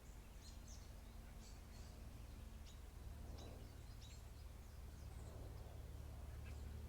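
Faint, scattered bird chirps, short and high, over a low steady hum.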